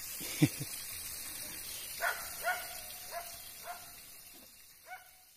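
A dog barking, five or six short barks spaced about half a second to a second apart, after a single louder, short, low sound about half a second in. Everything fades out near the end.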